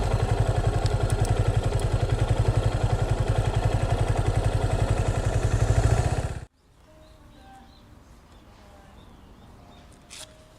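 Motorcycle engine idling with an even, steady pulse, cutting off abruptly about six and a half seconds in. It leaves a much quieter background with a few faint short chirps.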